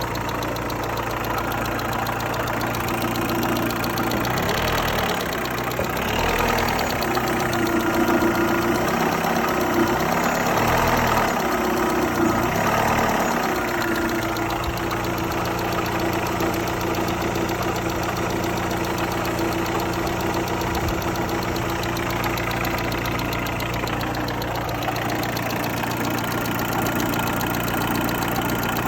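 Opel Astra's 1.8 X18XE1 four-cylinder petrol engine idling with a knocking, ticking noise in the engine, revved up and down several times from about four seconds in to about fourteen, then settling back to idle.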